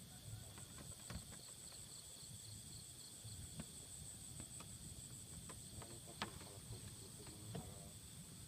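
Insects, crickets or the like, trilling steadily in several high-pitched pulsing layers. Faint scattered clicks and ticks sound over them, with one sharper click about six seconds in.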